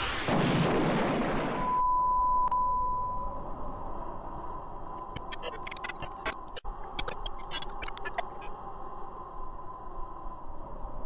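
Cartoon sound effects: a loud explosion-like noise burst that ends about two seconds in. It gives way to a steady high beep-like tone that fades out, then a scattering of sharp clicks and cracks about halfway through, over a faint steady hiss.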